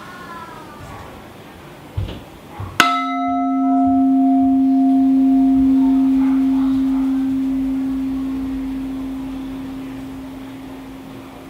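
A large bowl-shaped sculpture vessel struck once, ringing with one long low tone and a few higher overtones. The overtones die out within a few seconds while the low tone fades slowly. Two soft knocks come just before the strike.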